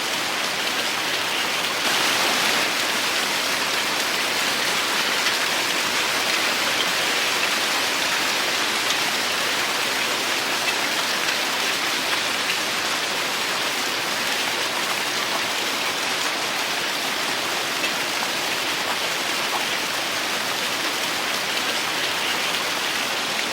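Heavy rain falling in a steady hiss, with faint scattered drops pattering on a surface; it grows a little louder about two seconds in.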